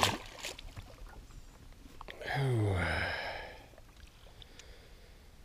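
A splash right at the start as a released largemouth bass drops into the water beside the boat. About two seconds in, a man gives a long sigh that falls in pitch and lasts over a second.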